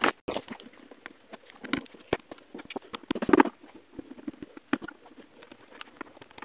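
Irregular small clicks and ticks of a precision screwdriver working the tiny screws out of a smartphone's internal frame, with light taps of metal on plastic. There is one louder click at the very start and a busier run of clicks a little over three seconds in.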